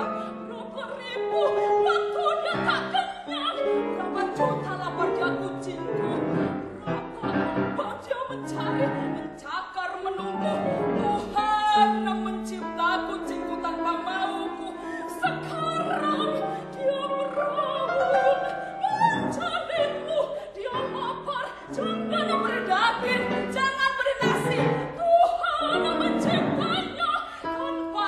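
A soprano sings in operatic style over piano accompaniment, with some held notes sung with vibrato.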